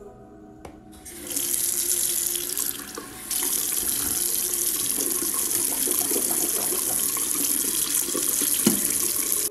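Bathroom sink faucet running, its water splashing into the basin as someone washes over it. It comes on about a second in.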